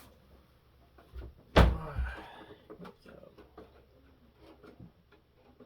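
A single loud thump about a second and a half in, with a short ringing tail, amid small clicks and rustles of handling.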